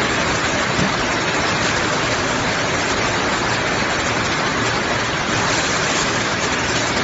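Steady rushing hiss of a running automatic blow molding machine for acrylic or PC lamp covers, with no distinct strokes or clanks standing out.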